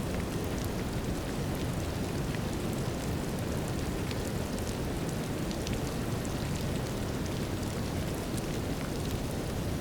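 Steady brown noise layered with light drizzle, scattered raindrop ticks over a deep, even hiss.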